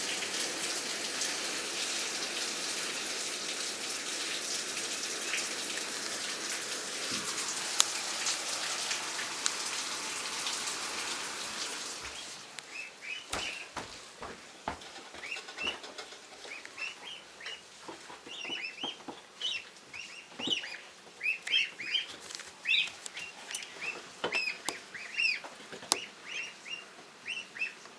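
Steady rain falling, which stops abruptly about twelve seconds in. After that, small birds chirp repeatedly, with a few sharp clicks and drips.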